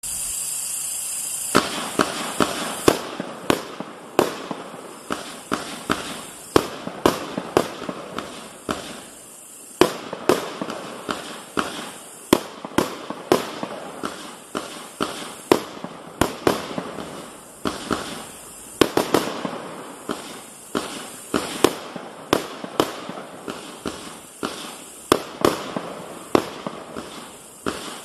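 A 144-shot consumer fireworks cake with 25 mm tubes firing shot after shot, sharp bangs about twice a second over a constant hiss. The shots start about a second and a half in and pause briefly just before ten seconds in.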